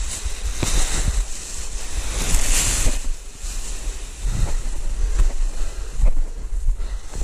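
Wind buffeting the microphone, with swishing rustle of a large balloon's fabric envelope and brush being handled, swelling in two surges in the first half and a few soft knocks later.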